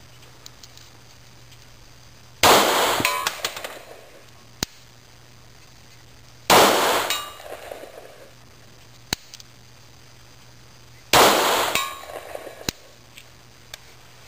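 Three pistol shots from a Glock fired at a long-range target, about four seconds apart, each with a tail that dies away over about a second. A few faint sharp clicks come between the shots.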